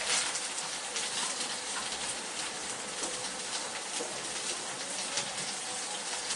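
Sous-vide pork steaks, dried off, searing in a very hot wok: a steady sizzle full of fine crackles and spits.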